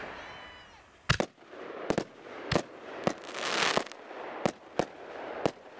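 Fireworks going off: about nine sharp bangs spread over some five seconds, with a crackling hiss of sparks swelling and fading about halfway through.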